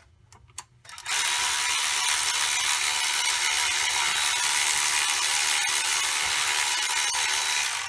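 Cordless electric ratchet running steadily for about seven seconds, starting about a second in, spinning a water pump bolt out. A few small clicks come before it starts.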